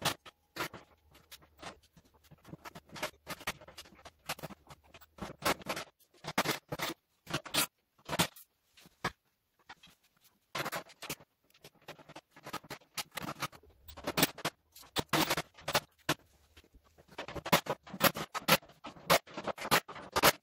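Galvanized steel panels and their bolts being handled and fitted by hand: irregular small metallic clicks, taps and scrapes that come in bursts with short pauses.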